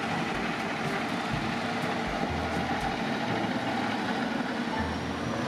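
Diesel engine of a MAN semi tractor running steadily as it drives along pulling a loaded tipper trailer, with rumble and road noise.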